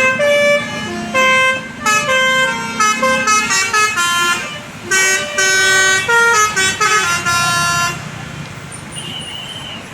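Bus telolet basuri horn playing a melody of quick stepped notes, which stops about eight seconds in and leaves traffic noise.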